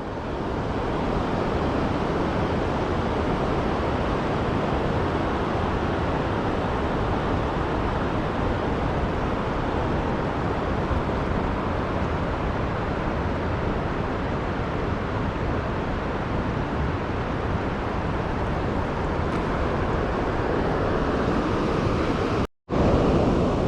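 Steady rush of stream water below a waterfall, an even wash of noise, cutting out for a moment near the end.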